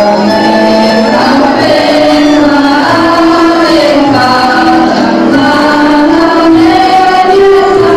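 Women's voices singing a Bosnian folk song together, over a steady low beat.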